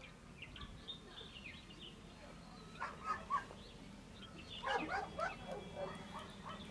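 Faint barking of distant dogs: a couple of barks about three seconds in, then a run of barks near the end. Thin bird chirps come in the first seconds.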